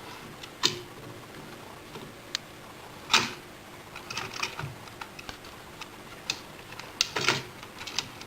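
Light plastic clicks and taps as an A3 inkjet printer's print head is set down and seated in its carriage by hand. The sharpest clicks come about three seconds in and again around seven seconds.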